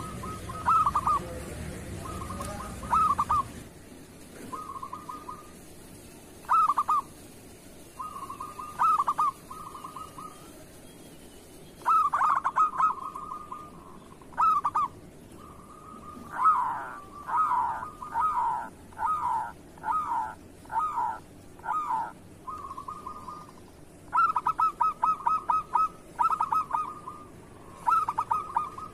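Zebra dove (perkutut) song: repeated phrases of quick staccato coos a second or two apart, with a longer run of separate rolling notes in the middle.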